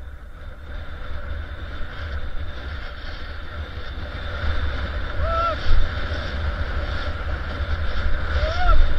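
Wind rushing over the camera microphone and skis hissing through soft snow during a descent, growing louder as speed builds. Two short pitched squeaks that rise and fall come about halfway through and near the end.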